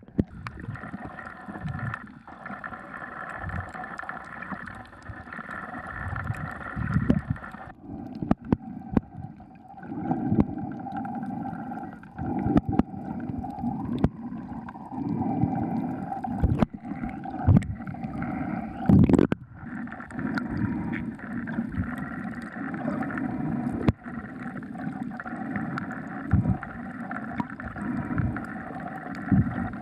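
A boat's motor runs with a steady drone, under irregular water sloshing and gurgling and a few knocks.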